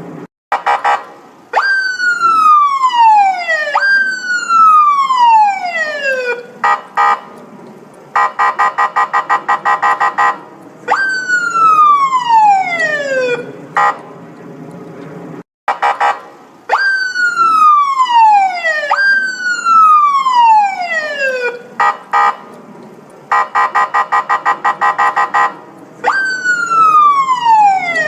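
Electronic police siren cycling through its patterns: loud tones that sweep sharply downward and restart, two or three in a row, alternating with stretches of rapid pulsing tones. The sequence repeats about every 15 seconds.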